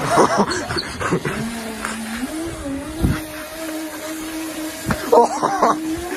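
Steady electric motor whine that drops in pitch about a second and a half in, then climbs back a second later. A thump about three seconds in, and short louder bursts near the start and about five seconds in.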